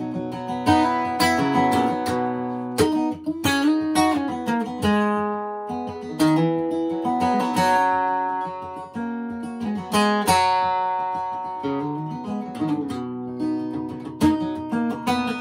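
Solo acoustic guitar playing an instrumental break, mixing strummed chords with picked single-note melody lines.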